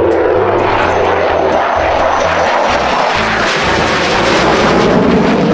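F-16 fighter jet flying past: loud, steady jet engine noise that grows a little louder toward the end.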